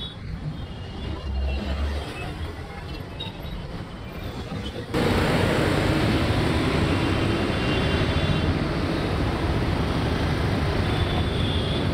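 Road traffic noise: a steady rumble of cars, buses and trucks on a busy road, with no single vehicle standing out. It steps up suddenly and stays louder from about five seconds in.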